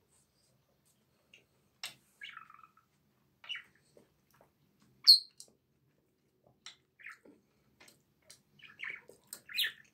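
Eating sounds: a fork clicking and scraping against a stainless-steel pan, with chewing and lip smacks. They come as scattered short clicks and brief squeaky bits, the loudest a sharp clink about five seconds in.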